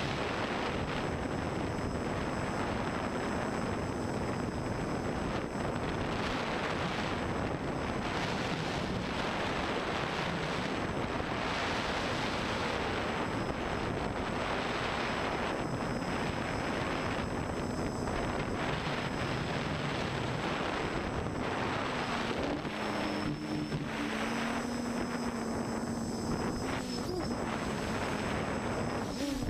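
FPV quadcopter's brushless motors and propellers buzzing in flight, under heavy wind rush on the onboard camera's microphone. Near the end a pitched motor hum stands out more clearly and wavers as the throttle changes.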